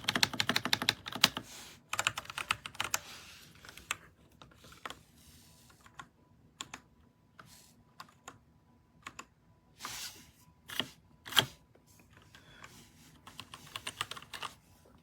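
Typing on an RK Royal Kludge RK61 mechanical keyboard. It opens with a fast run of key clicks, thins to scattered single keystrokes with a few heavier strikes, and picks up in a short flurry near the end.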